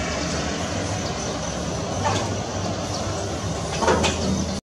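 Airbus A321-200 airliner's twin jet engines running at low taxi thrust as it rolls along the runway: a steady, even rumble and hiss.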